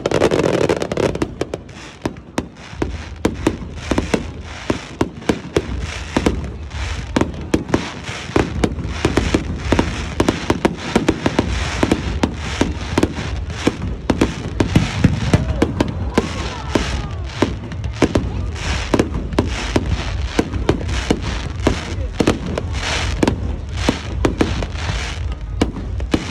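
Fireworks display: a continuous run of sharp bangs and crackles, several a second, over a steady low rumble.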